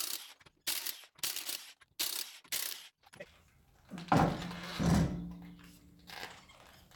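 Socket wrench with a 21 mm socket working on a wheel's lug nuts: five short ratcheting bursts, then two loud metallic clanks that ring briefly, about four and five seconds in.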